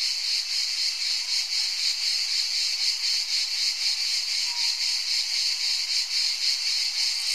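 A dense, steady chorus of chirring insects: a high, shrill sound with a fast pulsing texture.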